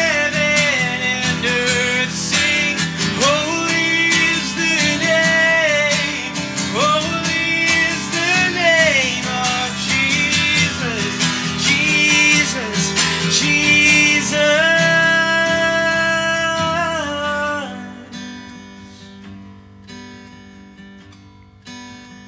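Acoustic guitar strummed under a man singing a worship song in long, held notes. About 18 seconds in the singing stops and the guitar plays on more softly.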